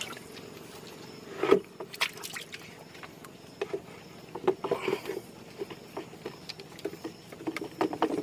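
Irregular knocks and thuds in a boat as a large giant snakehead is stuffed into the hold and the cover board is worked over it, the loudest knock about a second and a half in.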